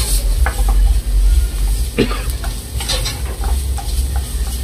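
Diced vegetables sautéing in a metal pan: a steady sizzle, with the scrapes and knocks of a spatula stirring them and the pan being tossed. A low rumble runs underneath.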